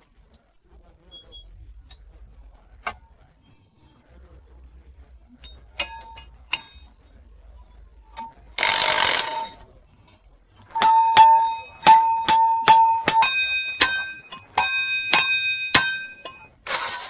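Light metal clinks, then a loud rasping hiss of about a second. After that comes a run of hammer blows on steel electric-car axle parts, about three a second, each one ringing with a metallic tone, during axle bearing replacement.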